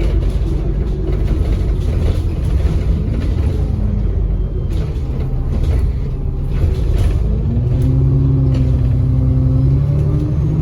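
ADL Enviro400 double-decker bus's diesel engine running with a low rumble and a few knocks near the middle. From about three-quarters of the way in, the engine note strengthens and rises slightly as the bus pulls away.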